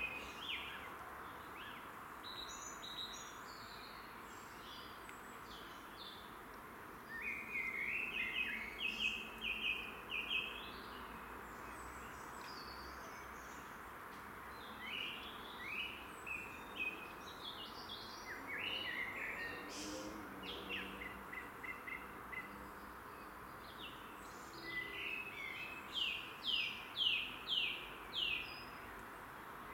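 Songbirds singing, in bursts of quick chirping phrases every few seconds over a steady background noise. The loudest phrase comes near the end, a run of about five quick falling notes.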